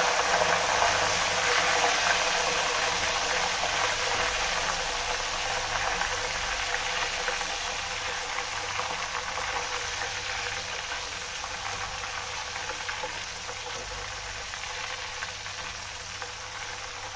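Banana slices deep-frying in hot oil: a steady sizzle that is loud at first, right after salt-and-turmeric water has gone into the oil, and gradually dies down as that water cooks off.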